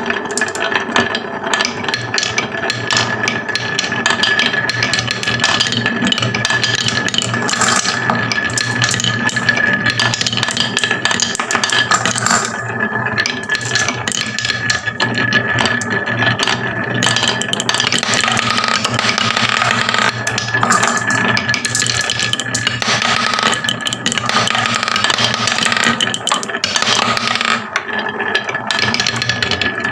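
Many marbles rolling and clattering down a marble run, a dense, continuous rattle of small clicks, with a steady high hum underneath.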